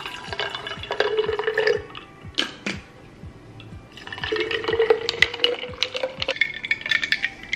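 Juice poured from a bottle into a glass mason jar in two pours, first tart cherry juice and then lemonade. The second and longer pour rises slightly in pitch as the jar fills. A couple of knocks come between the pours, and music plays underneath.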